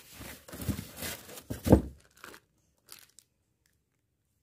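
Clear plastic bag crinkling and rustling as a washing machine hose sealed in it is handled, loudest just before two seconds in, then tailing off to a few faint rustles.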